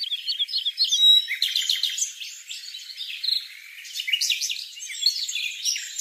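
Small birds chirping: rapid clusters of short, high notes, busiest from about a second and a half in.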